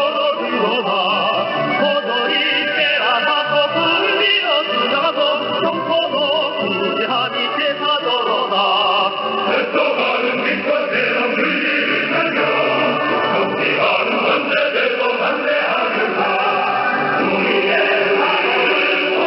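A North Korean revolutionary song sung by a choir, received over shortwave radio, so it sounds narrow and thin with the high end cut off.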